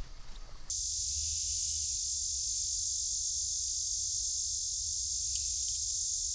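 A steady high hiss that starts abruptly about a second in, with a low rumble underneath.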